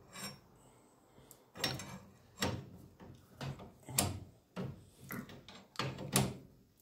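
Steel wrench clicking and creaking against a brass nut as the Y-strainer fitting on a boiler's water inlet is tightened. It comes as a series of about eight short, sharp sounds, roughly one every half second, starting about a second and a half in.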